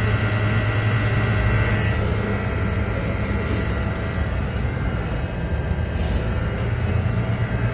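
A steady low rumble with a constant hum and hiss, like a running engine or machine, holding even throughout.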